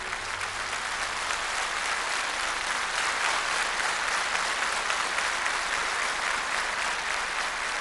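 Audience applauding steadily as a song ends.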